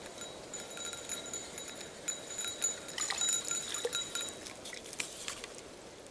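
Baitcasting reel cranked in short spells while a small warmouth is reeled to the bank, a thin whine from the reel's gears that stops about four seconds in. A few light clicks and splashes follow as the fish comes to the surface.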